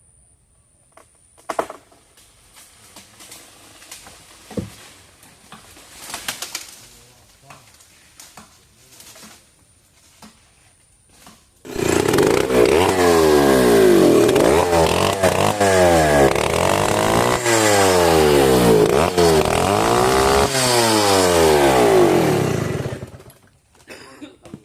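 Two-stroke chainsaw engine starting up abruptly and being revved up and down again and again for about ten seconds, then cut off. Before it come a few scattered knocks and rustles.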